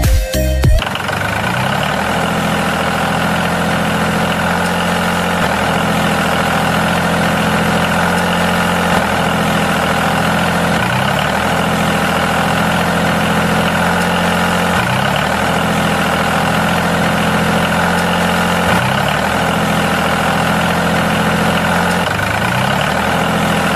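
Electronic music cuts off within the first second, followed by a steady engine idle sound, typical of a tractor engine sound track, with a short rising sweep in pitch repeating about every four seconds.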